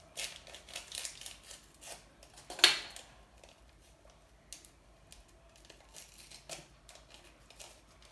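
Fun Dip candy packet being handled and torn open: crinkling rustles in the first two seconds, one loud sharp rip about two and a half seconds in, then a few light rustles and clicks.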